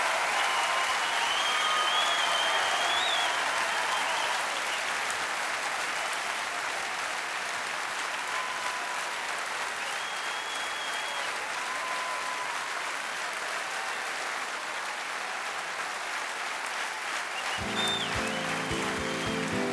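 Theatre audience applauding steadily, with a few whistles over the clapping. Near the end an acoustic guitar starts playing.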